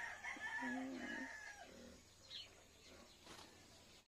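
A rooster crowing faintly: one drawn-out call in the first second and a half or so.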